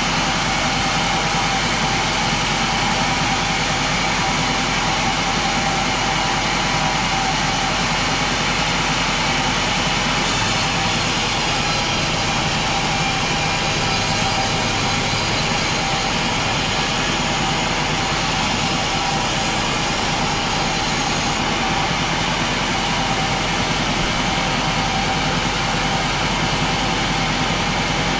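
Engine-driven saw running steadily under load, cutting through a large pine log. About a third of the way in it takes on a brighter, hissier edge that lasts roughly ten seconds.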